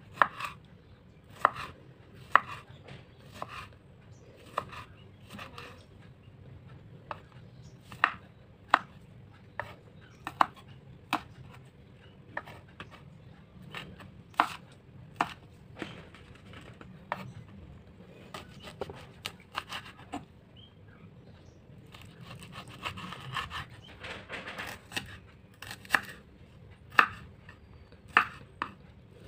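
Kitchen knife cutting tomato, red chillies, shallots and garlic on a wooden cutting board: sharp taps of the blade meeting the board, roughly one a second, with a quicker run of cuts about three-quarters of the way through.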